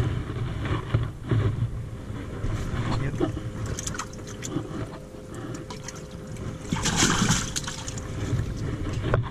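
Water splashing beside a fishing boat, loudest in one splash about seven seconds in, with a few light knocks against the boat.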